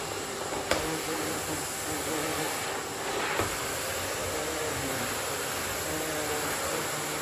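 Miele vacuum cleaner running steadily, its hum wavering slightly in pitch, with two short sharp knocks, one under a second in and one near the middle.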